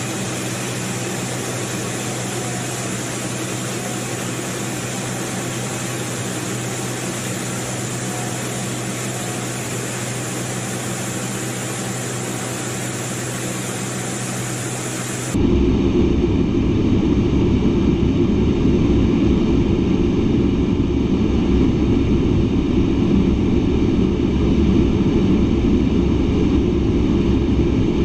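Steady jet noise inside the cockpit of an A-10 Thunderbolt II in flight, from its TF34 turbofan engines and the air over the canopy. The first half is an even hiss with a thin high whine. About halfway through it cuts to a louder, deeper rumble.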